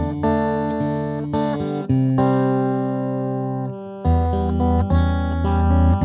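Electric guitar, a Guild SC3 Strat-style fitted with ID:Evolution single-coil pickups, played through an amp: chords strummed and left to ring. One chord is held for about a second and a half in the middle and dies away, then a fresh chord is struck just after four seconds.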